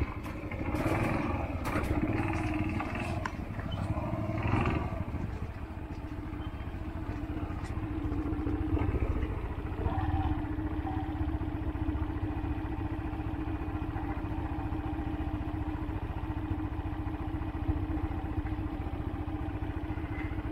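Yamaha XTZ 125 motorcycle's single-cylinder four-stroke engine running, with knocks and rattles over the first five seconds, then settling into a steady, even note.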